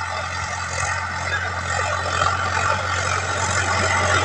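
Sonalika Sikander tractor's diesel engine running steadily under load while pulling a tillage implement through soil, getting gradually louder as it comes closer.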